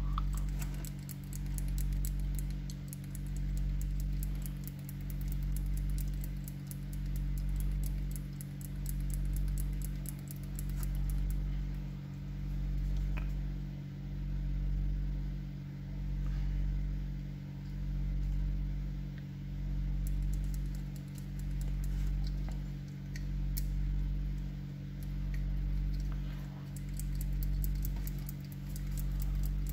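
Steady low electrical hum that swells and fades about every two seconds, with faint quick clicking from a walkie-talkie's PTT button being pressed over and over while it is cleaned with alcohol to cure a sticking press.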